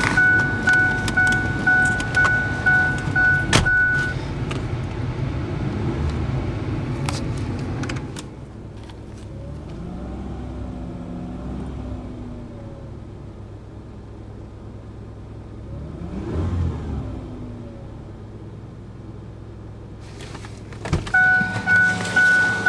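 Ford Explorer engine idling, its failing water pump not squealing while the engine is still cold. A vehicle warning chime dings about twice a second for the first four seconds, and comes back after a click near the end.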